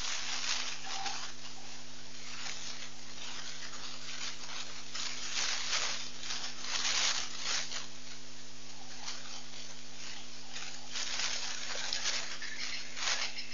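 Outdoor bush ambience through a webcam microphone: a steady low hum under an uneven hiss that swells and fades every second or so, with no distinct animal call.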